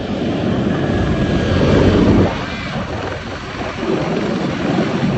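F-22 Raptor's twin Pratt & Whitney F119 turbofan engines running as the jet taxis: a loud, steady rumble that swells about two seconds in, drops off suddenly, and builds again after about four seconds.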